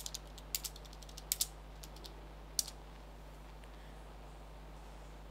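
Typing on a computer keyboard: a quick, irregular run of key clicks for the first two and a half seconds or so, ending with one sharper lone keystroke, then it stops.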